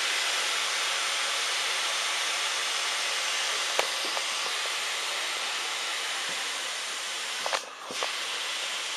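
Steady hiss of steam from a Southern Railway U-class steam locomotive as the train moves off, with no exhaust beats heard. A small click comes about four seconds in, and a brief muffled dip with a knock about eight seconds in.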